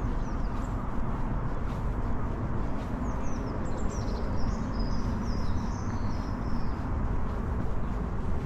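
Steady low background rumble of the city, with a small bird chirping and twittering in a quick run of high notes from about three to seven seconds in.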